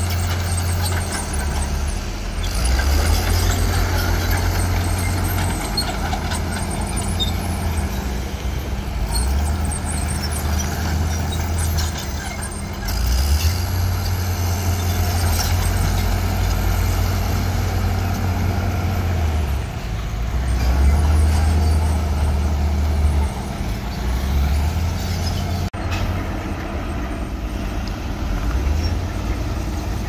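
Diesel engine of a Komatsu D41E crawler bulldozer working as it pushes soil, its deep note swelling and easing every few seconds.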